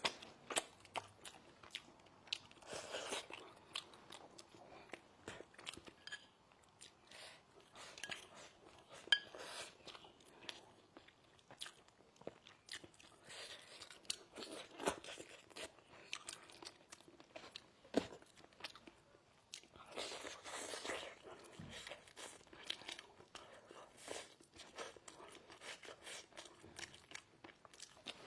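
A person chewing and biting food close to the microphone, with irregular crunchy bites and mouth noises.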